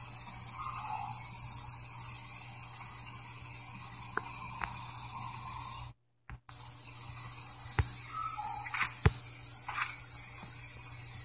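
Aerosol spray-paint can spraying in two long bursts: a steady hiss that breaks off for a moment about six seconds in, then resumes, with a few light clicks near the end.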